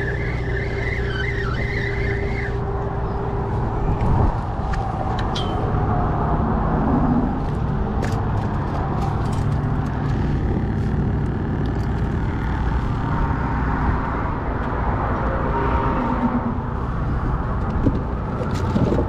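A spinning reel being cranked for the first couple of seconds, over a steady low rumble that runs throughout.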